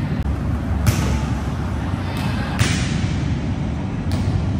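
Sharp slaps of a volleyball being struck, three times about a second and a half apart, over a steady low rumble.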